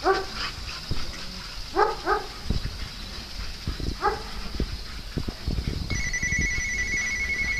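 Small dog barking: a short bark at the start, a quick double bark about two seconds in and another about four seconds in. Near the end, an electronic trilling ring, like a phone, sounds steadily for about two seconds.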